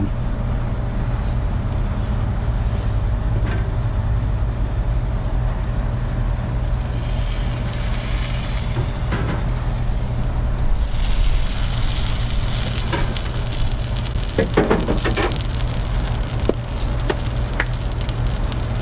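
Crunch wraps frying in duck fat on a hot griddle: a steady sizzle that grows stronger about seven seconds in, over a steady low hum, with a few short knocks around the fifteen-second mark.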